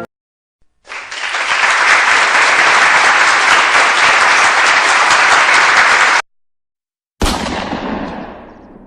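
A crowd applauding, stopping abruptly after about five seconds. About a second later a sudden loud impact that fades away over about two seconds.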